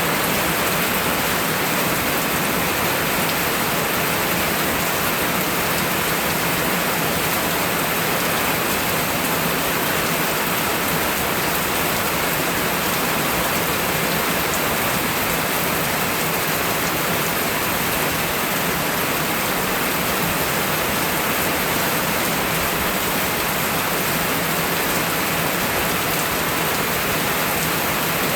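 Steady rainfall, an even hiss of rain with no let-up.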